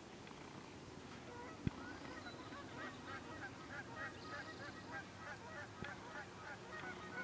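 A bird calling in a fast series of short, repeated calls, about four a second, starting about three seconds in and stopping shortly before the end. A single sharp knock sounds about one and a half seconds in.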